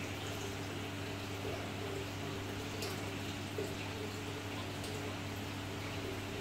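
Aquarium filter or pump running: a steady low hum under continuous bubbling and trickling of water in the tank.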